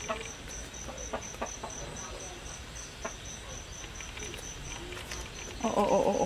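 Insect chirping in a high, even pulse, about four chirps a second, with scattered faint clicks. Near the end, a louder pitched call or voice lasts about a second.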